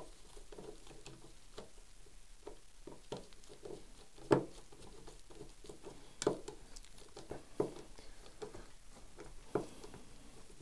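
Small irregular clicks, taps and scratches from hands fitting and turning the stock screw on a Henry H001 .22 lever-action rifle, with four sharper clicks spread through it.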